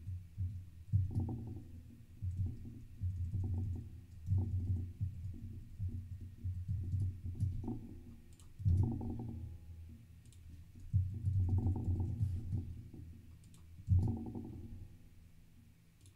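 Computer keyboard typing and clicking while code is edited: scattered light clicks over a low, uneven rumble that swells and fades every second or two.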